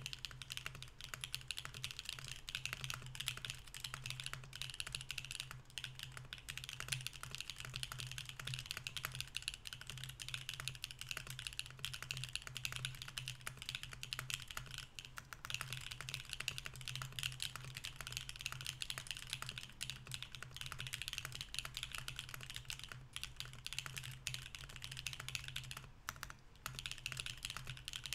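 Mercury65 mechanical keyboard with BSUN Anya switches, an aluminium plate, no foam and GMK keycaps, typed on continuously at a fast, even pace, with a few brief pauses.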